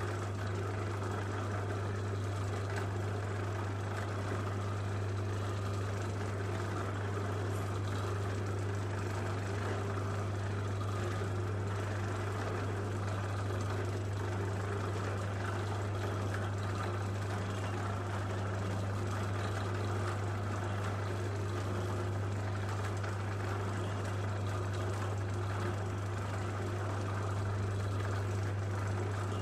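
Electric motor running at a constant speed: a steady low hum that does not change in pitch or loudness.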